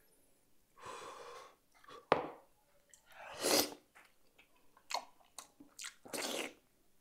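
Close-up mouth noises of eating a boiled cow's eye: three noisy slurps, about a second, three and a half seconds and six seconds in, with wet lip and mouth clicks between them as it is sucked at and bitten into.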